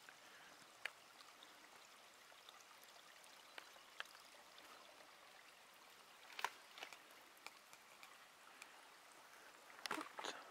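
Faint trickle of a small woodland stream running between snowbanks, with a few scattered light clicks and crunches, the loudest cluster near the end.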